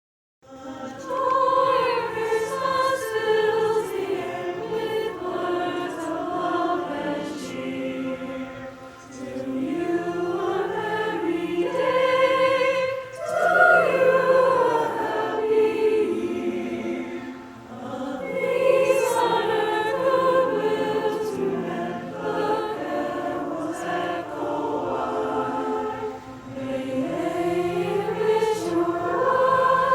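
Combined high school choir singing in parts, coming in about half a second in after a moment of silence.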